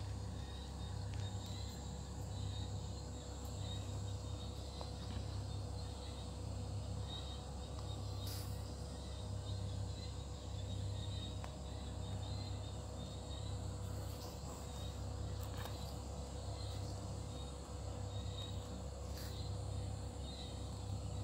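Night insects chirping steadily over a low hum, with a few faint ticks.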